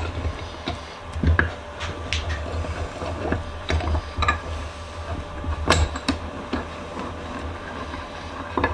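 Erie 102 1/2 cast-iron bench vise being put back together: the freshly oiled screw turned into the vise, with irregular metal clicks and knocks, one louder knock about two-thirds of the way through, over a low steady hum.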